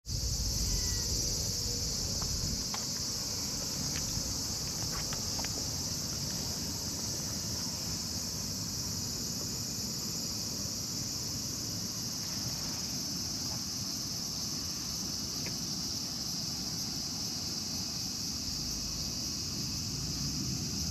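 A steady, high-pitched chorus of insects chirring, dense and even throughout. There are a few faint ticks in the first few seconds and a low rumble underneath.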